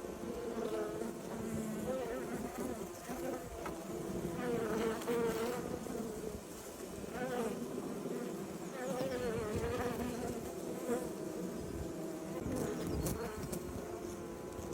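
Honeybees buzzing, many at once: a steady hum of several overlapping wing tones, with single bees passing close now and then, their pitch wavering up and down.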